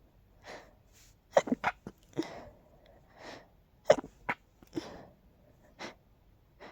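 A person sneezing over and over in short, sharp sneezes, several in quick succession, the loudest about four seconds in, with softer breaths between: pollen-allergy sneezes.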